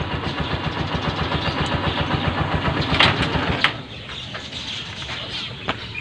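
Honda TMX 125 Alpha's single-cylinder four-stroke engine idling with a rapid, even beat, running with its ignition switch bypassed by a jumper wire. Two sharp clicks come near the end of the idling, and then the engine sound drops sharply to a faint level.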